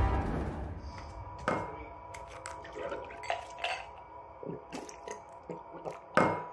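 Small clinks and knocks of a drinking glass and bottle handled on a table, with a louder knock about a second and a half in and another near the end.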